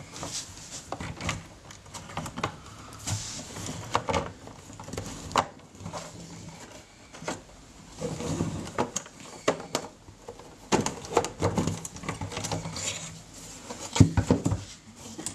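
Handling noise of a Tascam mixing console's metal casing as it is tilted, lifted and opened up: irregular clicks, taps and knocks of metal panels and plastic knobs against the table, with a cluster of sharper knocks near the end.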